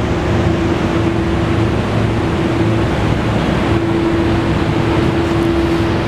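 2014 Triumph Thruxton 900's air-cooled 865 cc parallel-twin engine idling steadily.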